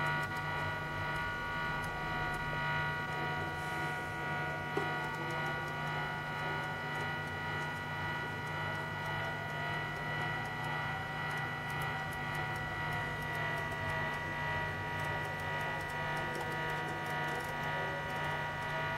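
Electronic noise drone from a Zoom G1X guitar multi-effects pedal: a steady low hum under a cluster of steady high tones, with a wavering tone that slowly sweeps up and down. A single click comes about five seconds in.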